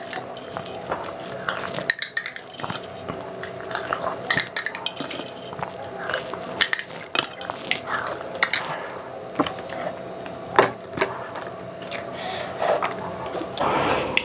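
Steel spoon scraping and clinking against a small glass bowl while scooping up the last of the kheer, in many short, irregular clicks.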